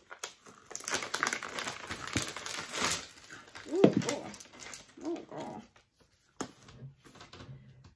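Clear plastic bag of rough stones crinkling as it is handled and opened, with scattered small clicks. Two short whine-like vocal sounds, rising and falling in pitch, come about four and five seconds in.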